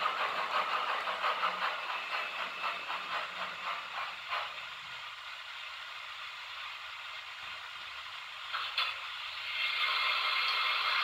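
A model railway train rolling past on the layout tracks, its wheels making a fast, even clatter over the rail joints, which fades out about four and a half seconds in. After a quieter stretch with a couple of single clicks, a steady rolling noise rises again near the end.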